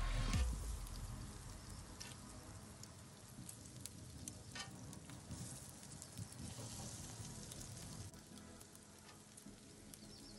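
Bacon sizzling in its fat on a Blackstone griddle's hot steel top, with light scattered clicks of metal tongs turning and lifting the strips. A louder low sound fades away in the first half second.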